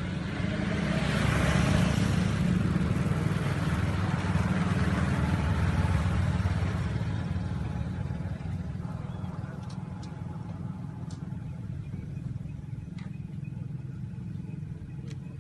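A motor vehicle passing close by: a low engine rumble with a rush of noise that swells over the first couple of seconds and fades away by about halfway through.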